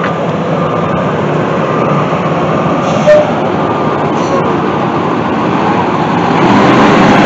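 School bus moving slowly past at close range, its engine running steadily; the engine sound grows louder near the end.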